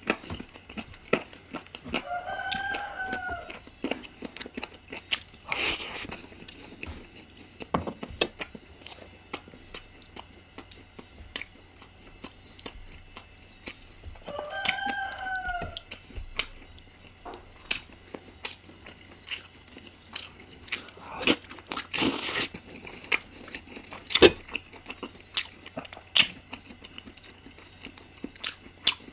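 Close-miked eating of spicy chicken curry: chewing, biting and crunching with many small wet clicks, with louder crunches about six seconds in and again past twenty seconds. A rooster crows twice in the background, about twelve seconds apart.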